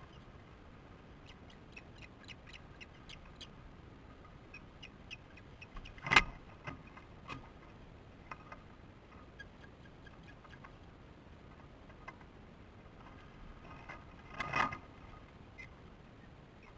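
Osprey alarm calls: a series of short, high chirps, several a second, with two louder bursts about six seconds in and near the end, sounded at an intruder near the nest.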